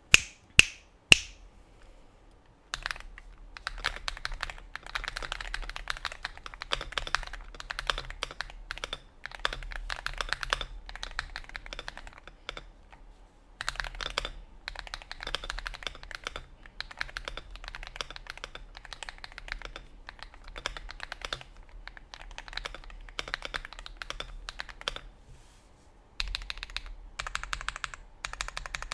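Mechanical keyboard with Akko CS Vintage White linear switches (ultralight 35 g springs) being typed on in a sound test, with quick runs of high-pitched clacks. Three loud sharp clicks sound in the first second or so before the typing starts, and the typing pauses briefly twice.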